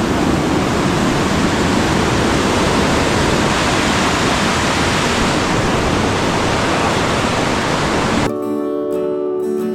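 Steady rush of flowing water, as from a mountain creek or waterfall. It cuts off suddenly about eight seconds in, when strummed acoustic guitar music begins.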